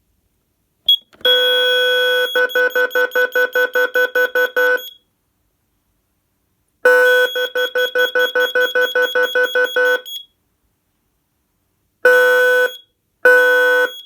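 Intruder alarm sounders going off in bursts: a harsh, buzzy tone holds for about a second, then pulses about six times a second before cutting off. It starts again the same way, then gives two short blasts near the end, with a thin high-pitched tone sounding alongside.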